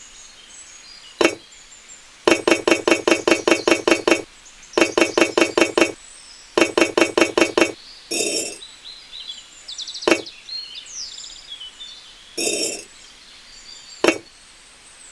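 Runs of rapid light clinking taps, about ten a second, from small hard objects knocked together, with single sharp clicks and short knocks between the runs.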